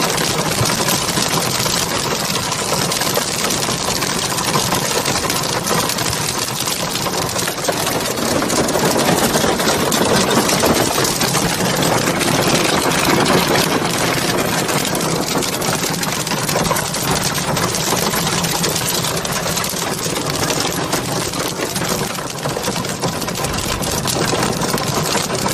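Hail pelting down hard: a loud, dense, steady rattle of countless small impacts.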